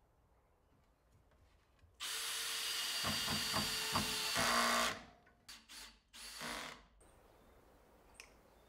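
Cordless drill with a long bit boring into a plywood cabinet panel: one steady run of about three seconds, then three short bursts on the trigger.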